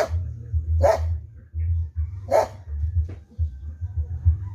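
A dog barking in short single barks, about one to one and a half seconds apart, three loud ones and a weaker fourth, over a low steady rumble.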